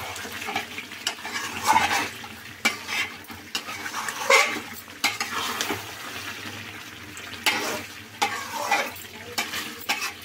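A metal spatula stirs chicken frying in thick masala in an aluminium kadhai, scraping and knocking irregularly against the pan over the frying sizzle.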